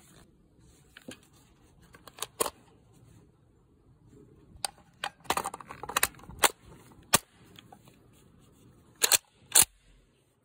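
Metal clicks and clacks of a 1941 SVT-40 semi-automatic rifle being handled, its detachable box magazine fitted to the magazine well. There are scattered single clicks, a quick run of clacks about halfway through, and two loud clacks near the end.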